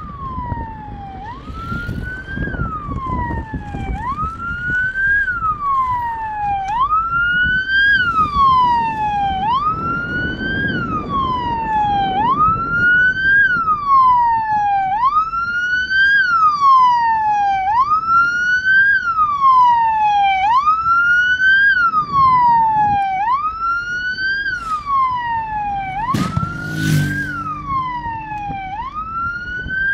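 Vehicle siren wailing in a repeating cycle. Each cycle rises quickly and then falls slowly, about every two and a half seconds, over a low rumble. There is a short sharp burst of noise near the end.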